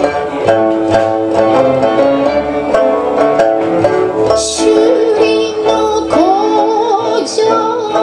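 Okinawan sanshin plucked in a steady run of notes over sustained Roland Juno keyboard chords; a woman's voice comes in singing with vibrato about five seconds in.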